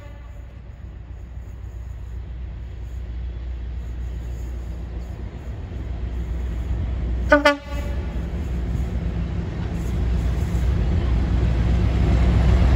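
Colas Rail diesel locomotives approaching, their engine rumble growing steadily louder, with a short blast on the horn about seven seconds in.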